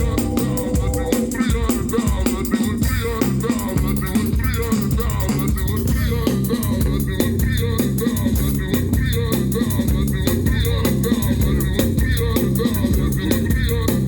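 Live band playing an instrumental stretch of a song without vocals, driven by a steady drum beat under a moving bass line.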